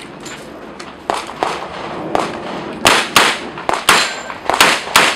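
Competition pistol shots fired in quick pairs, each shot sharp with a short echo: a couple of fainter shots about a second in, then a string of loud double taps from about three seconds in.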